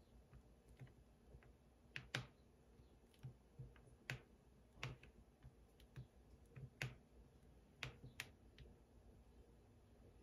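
Faint room tone with about a dozen light, irregularly spaced clicks and taps as the tip of a heated wax stylus works over a small card.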